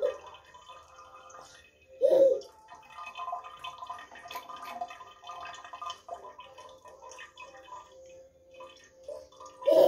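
Water trickling and dripping from a bidet tap into the bowl, with two short, loud, rising-then-falling squeals from a toddler, about two seconds in and again at the end.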